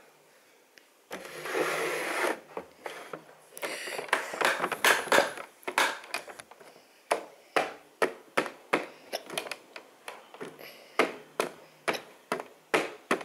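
Toys being handled: a scraping, rolling noise for about a second, then a run of light clicks and knocks, about two a second.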